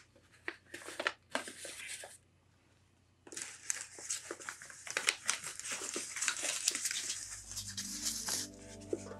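A cat chewing and tearing at a plant's leaves and stems, with quick crisp crunches and rustles in two spells: a short one at the start and a longer, busier one from about three seconds in. Background music comes in near the end.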